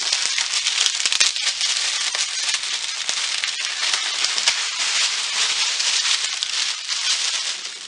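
Clear plastic wrapping crinkling and crackling as it is handled and pulled off a cardboard figure box, a dense run of small crackles that dies down near the end.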